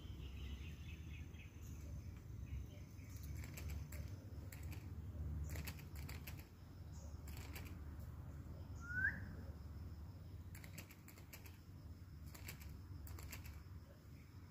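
Quiet forest ambience: a low steady rumble with scattered faint clicks and rustles. About nine seconds in comes one short, rising bird chirp, the loudest sound here.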